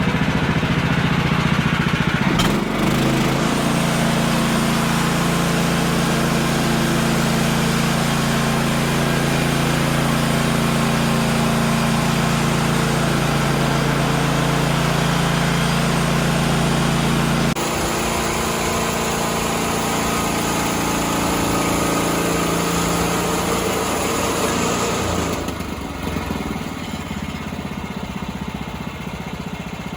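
Woodland Mills HM126 portable bandsaw mill's gas engine running steadily while the mill makes cuts. The engine note changes abruptly three times and is a little quieter after the last change, near the end.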